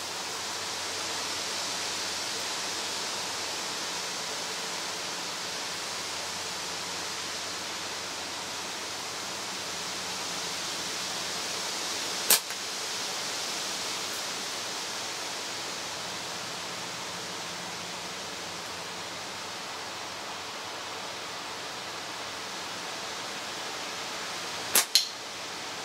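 Two slingshot shots with 6mm steel balls: a single sharp snap of the bands released about halfway through, and near the end a snap followed a fraction of a second later by a second crack, typical of the ball striking the target. Under them runs a steady outdoor hiss.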